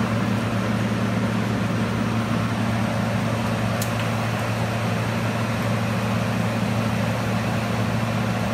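Induction heating equipment running: a steady low electrical hum over an even, fan-like rush of air from the 25 kW air-cooled power source, with one faint tick about four seconds in.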